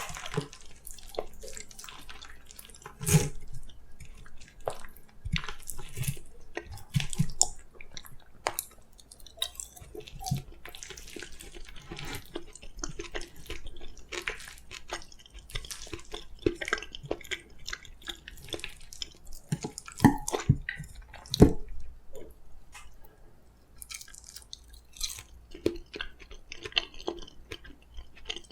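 Close-up eating sounds of soft steamed sweet pumpkin (kabocha) being chewed: wet, sticky mouth clicks and smacks in an irregular stream. A few sharper, louder clicks come about three seconds in and twice around twenty seconds in.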